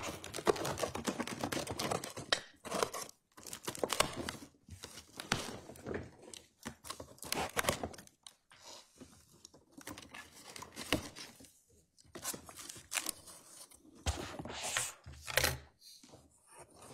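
Sealed evidence box being opened by hand: tape tearing and cardboard and packaging rustling and crinkling in irregular bursts, with small sharp clicks.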